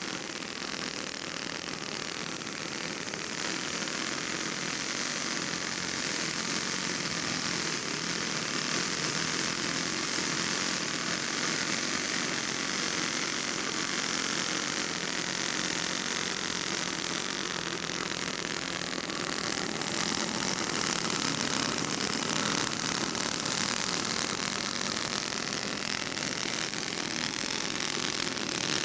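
Radio-controlled scale model airplane's engine and propeller running, a steady high-pitched whine that grows slowly louder.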